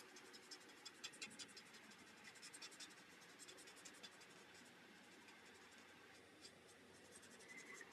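Faint scratching of a marker tip being stroked over cardstock while colouring, in clusters of short strokes.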